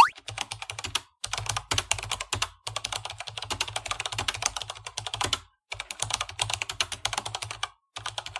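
Fast keyboard typing: quick runs of key clicks broken by a few brief pauses.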